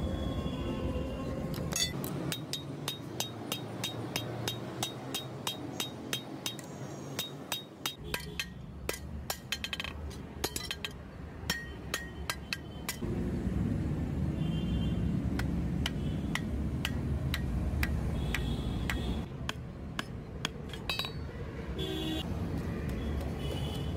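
Hammer tapping on a forged billhook held over an anvil, about three to four light strikes a second, each with a short metallic ring; the taps thin out past the middle. For several seconds in the middle, a low rumbling noise is louder than the taps.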